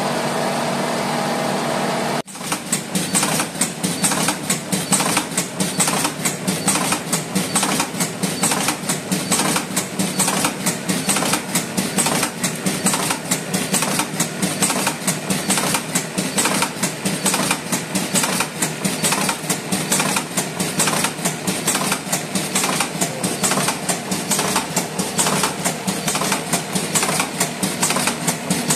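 Cigarette-rolling machine running, its mechanism clattering in a fast, even rhythm. It starts about two seconds in, right after a steady hum cuts off suddenly.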